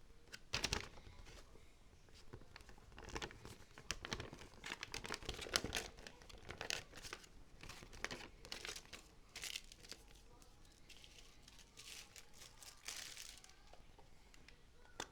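Packaging of a teeth whitening kit being handled and opened: irregular crinkling and crackling, with the densest stretch between about 3 and 10 seconds in.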